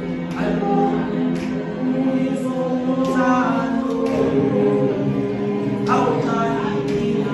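A group of voices singing together in harmony without instruments, with long held notes and sharp knocks at uneven intervals of about a second.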